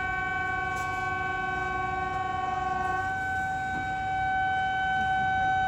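WAP-7 electric locomotive's air horn sounding one long, steady chord. One of its notes drops out about three seconds in while the other keeps sounding.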